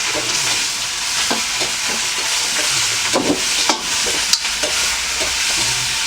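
Steady, dense hiss like food sizzling in a pan, with a few faint clicks and low murmurs about halfway through.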